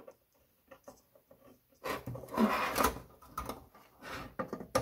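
Metal power supply box being slid and turned on a tabletop: a scraping rub about two seconds in, with small clicks and knocks from handling it and its mains cable and plug.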